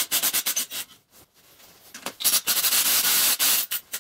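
Cordless drill/driver backing out the screws that hold the sheet-metal screen and shroud over the flywheel of a Kohler K-series cast-iron engine. There are several short rasping bursts in the first second, then one longer, steadier run from about two seconds in that lasts about a second and a half.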